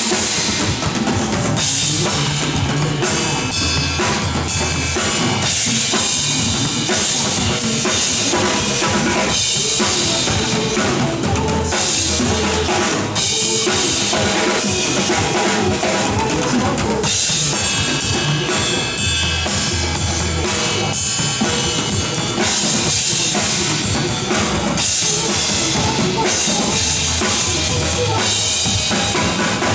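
Drum kit played over a pop backing track, with kick drum, snare hits and cymbals over a bass line.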